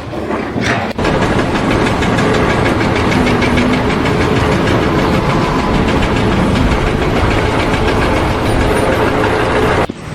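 An engine running steadily with a fast, even knocking rhythm.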